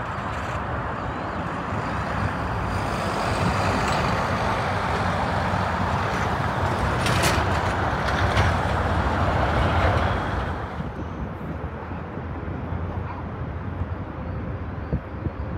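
Jet engines of a Boeing 787 airliner on its landing roll, a broad roar that builds a few seconds in and is loudest as the aircraft rolls out down the runway. The roar drops away sharply about ten seconds in, leaving a lower, steady rumble.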